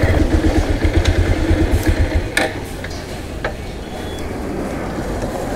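Motorcycle engine running with an evenly pulsing low note as the bike rolls to a stop, the note dropping away about two seconds in. A couple of sharp clicks follow.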